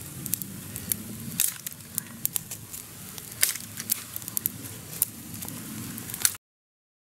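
Small campfire of damp twigs crackling, with many sharp irregular pops; the sound stops abruptly about six seconds in.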